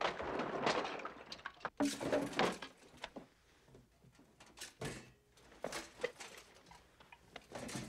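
Rummaging: rustling and clattering of things being shifted in a closet and a toy chest for the first few seconds, then a few lighter knocks and clicks as a tin can hanging from a lamp is handled.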